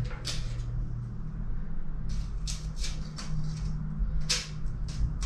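Steel tape measure being pulled out and held across a steel plate: a scatter of light clicks, taps and scrapes over a low steady hum.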